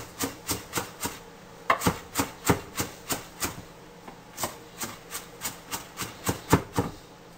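Kitchen knife chopping grated carrot on a wooden cutting board: quick strokes knocking on the board about three or four times a second, with a short pause about halfway through.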